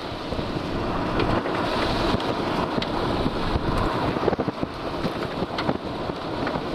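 Strong wind blowing across the microphone: a steady rushing noise with brief crackles of buffeting.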